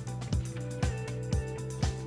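Background music with a steady beat, about two beats a second, over a held bass line.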